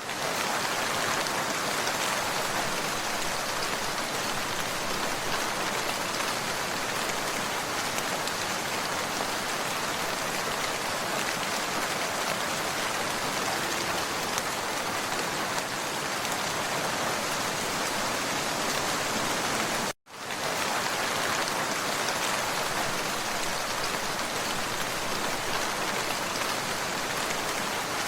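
Steady rain falling and pattering on a surface. The sound cuts out for an instant about twenty seconds in, then carries on unchanged.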